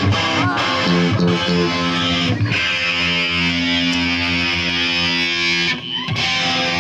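Electric guitar through an amplifier: a few short chords, then one chord left ringing for about three seconds, cut off briefly near the end before more notes sound.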